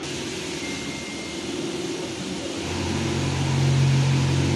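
Jack M5 automatic template sewing machine running: a steady mechanical hiss and hum, joined about two-thirds of the way through by a louder, deeper steady hum.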